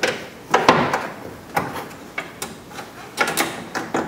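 A hand and arm rummaging inside a car door's metal cavity while feeling for the window motor's wiring lead: irregular knocks, clunks and scraping rubs against the inner door panel, loudest about half a second in.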